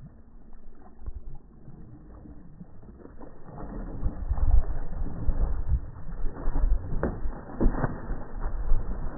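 Water splashing as a large hooked northern pike thrashes at the surface, in irregular surges that grow louder from about four seconds in, with wind rumbling on the microphone.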